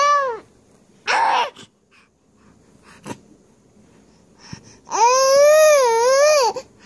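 A baby babbling: a short breathy sound about a second in, then one long high-pitched, wavering squeal near the end.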